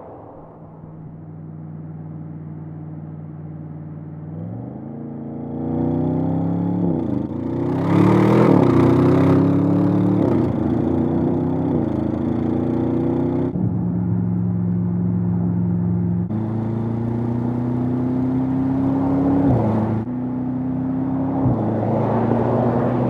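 Audi RS7 Sportback Performance's 4.0-litre twin-turbo V8 running at a steady low pitch, then accelerating through the gears. The engine note climbs and drops back at each of several upshifts.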